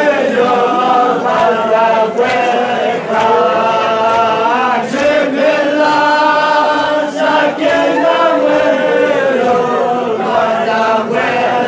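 A group of men chanting a mourning lament (noha) together in long held melodic lines, led by a reciter singing into a microphone.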